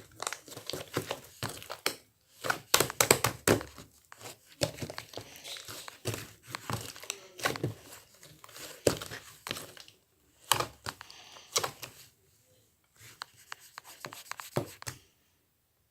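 Slime being squished and pressed by hand, irregular crackling pops and squelches in clusters with short pauses, stopping about a second before the end.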